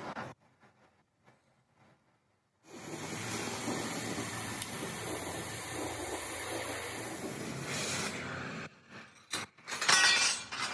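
Oxy-fuel cutting torch hissing steadily as its jet cuts through steel plate, starting a few seconds in and stopping about two seconds before the end. A few sharp metallic knocks follow as the cut steel plate is handled.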